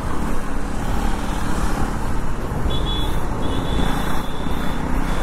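Riding noise from a KTM 390 Duke's single-cylinder engine, still on its stock exhaust, with a steady rush of wind over the microphone while the bike is under way.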